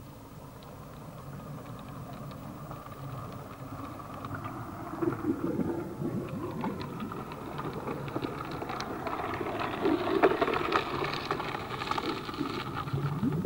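Water and sediment rushing and splashing through the sieves of a dredge platform over a steady machine hum, growing gradually louder.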